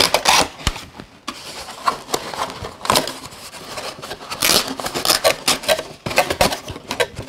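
Cardboard box insert being handled and pried at by hand: an irregular run of scrapes, rustles and knocks of cardboard and plastic toy parts as a plastic floor plate is worked out of it.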